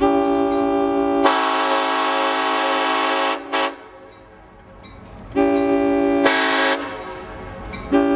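Nathan M5 five-chime air horn on the EMD F7A locomotive Clinchfield 800 sounding for a grade crossing: a long blast of about three seconds that grows fuller about a second in, a very short toot, a pause filled with the locomotive's low diesel rumble, then a second blast of over a second and a third starting near the end.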